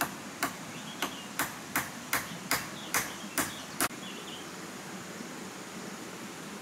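About ten sharp strikes of a hand tool on the bamboo and wood roof framing, evenly spaced at roughly two and a half a second, stopping about four seconds in.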